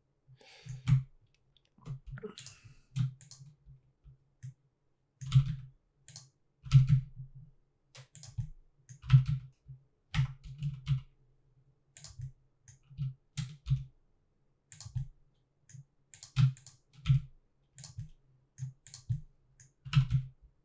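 Computer keyboard keys and mouse buttons clicking irregularly in short scattered runs, as hotkeys are pressed while animating in Blender.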